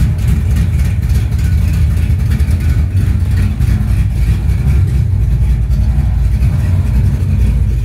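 1969 Dodge Super Bee's 440 Six Pack V8 idling steadily at about 1,000 rpm.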